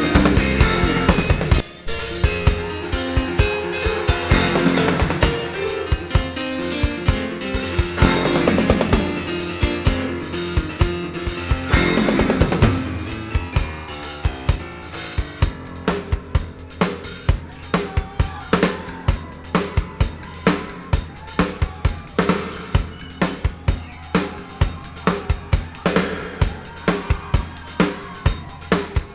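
Live rock band playing an instrumental jam with drum kit. After about thirteen seconds the other instruments drop back and the drum kit carries on nearly alone with a steady beat.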